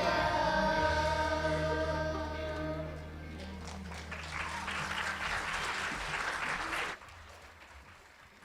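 Children's choir with accompaniment holding and ending the last note of a song, then audience applause for about three seconds that cuts off suddenly about seven seconds in.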